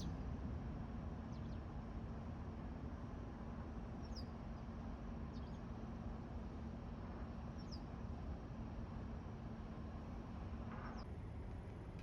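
Steady low background rumble with a faint hum that stops near the end, and a few short, faint high chirps scattered through it.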